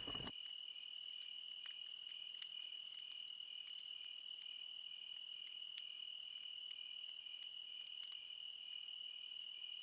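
Crickets trilling faintly: one insect holds a steady high trill while a second chirps in even pulses about twice a second.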